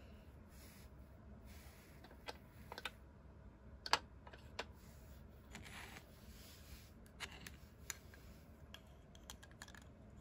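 Small plastic toy pieces, a figure and a toy stretcher, clicking and tapping together as fingers handle them, with soft rubbing of fingers on plastic. Scattered light clicks, the sharpest about four seconds in.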